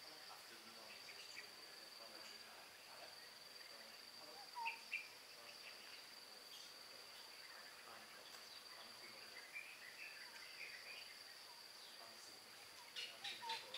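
Near silence over a faint, steady, high insect drone like crickets. A few brief chirps come through: two about five seconds in, and a quick run of them near the end.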